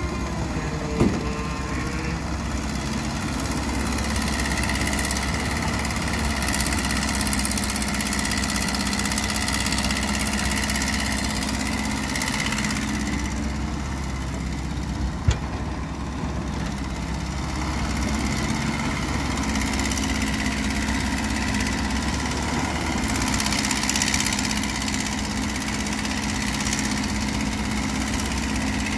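Caterpillar excavator's diesel engine running steadily as it digs and loads soil into a dump truck. Two sharp knocks stand out, about a second in and again about halfway through.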